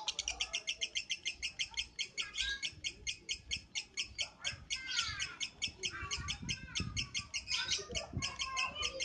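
Lovebird singing a long, unbroken rapid chatter of evenly repeated high notes, about eight a second, with a few softer gliding chirps lower down.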